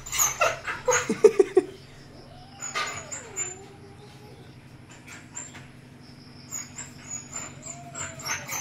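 Dog whining in long, wavering notes, after a quick run of short yips in the first two seconds.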